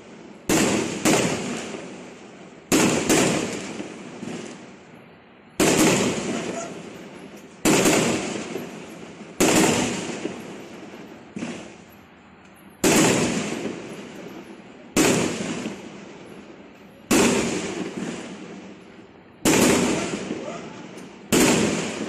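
Aerial fireworks bursting one after another, a sharp bang roughly every two seconds, each dying away over a second or two.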